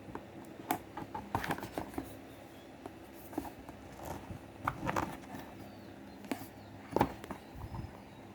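Cardboard box and its packaging being handled and opened where it is taped shut: scattered clicks, scrapes and rustles, with a sharper knock about seven seconds in.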